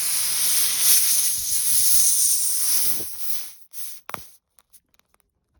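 Air hissing steadily out of a tire's puncture as a plug is pushed into the hole; the hiss stops about three and a half seconds in as the plug seals it, followed by a couple of short clicks.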